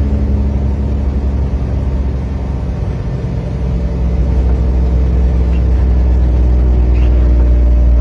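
Vehicle engine and road noise heard from inside the cab while driving on a snow-covered highway: a steady low drone that eases slightly a couple of seconds in and picks up again about halfway through.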